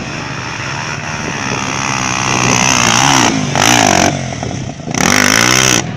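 Four-stroke single-cylinder trail motorcycle engine revving up and down while riding a dirt trail, its pitch rising and falling with the throttle. There are two louder surges, about halfway through and near the end, with a rush of noise over the engine.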